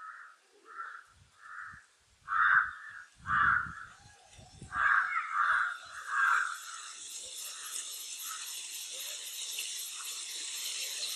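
A crow cawing repeatedly, about one call a second, for the first six seconds or so. After that a steady high hiss builds and carries on to the end.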